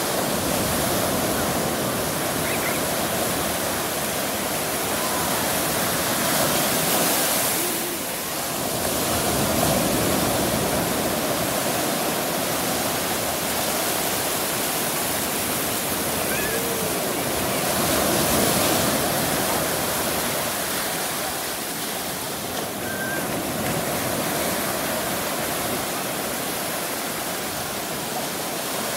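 Ocean surf breaking and washing up the shore in a steady rush, swelling louder about seven and eighteen seconds in.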